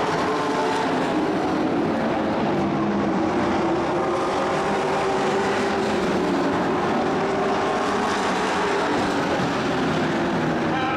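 Racing trucks' engines running at speed around a dirt oval: a loud, steady drone of several engines whose pitch wavers slightly as the trucks pass.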